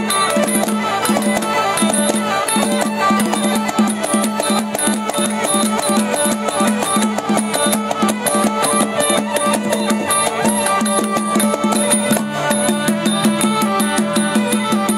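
Traditional southern Thai Nora ensemble music: percussion keeps a fast, even beat of about four strokes a second under steady held tones.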